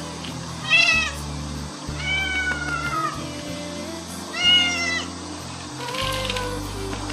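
A domestic cat meowing four times: short calls about a second in and about four and a half seconds in, a longer falling meow around two to three seconds in, and a fainter one near the end.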